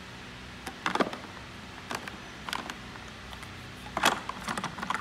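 Handling noise in a hard plastic tool case: a few short knocks and clatters as a power cord and the drill's side handle are set down into it, the loudest about four seconds in.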